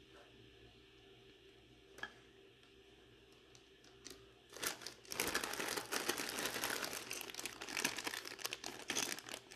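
Clear plastic packaging bags crinkling as hands handle them. The crinkling starts about halfway through and is dense and continuous; before it there are only a couple of faint clicks.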